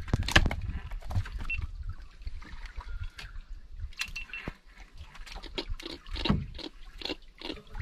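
Irregular knocks and clatter of hand-line fishing gear and hands on a small wooden fishing boat, with a loud knock about half a second in. A low rumble sits under the first couple of seconds.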